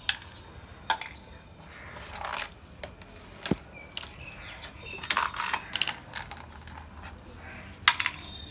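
Scattered sharp clicks and light clattering of small hard objects being handled and knocked together, at uneven intervals with a cluster about five seconds in.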